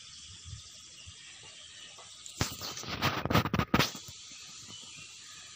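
A faint steady hiss, with a burst of rustling, scratching clicks starting about two and a half seconds in and lasting about a second and a half.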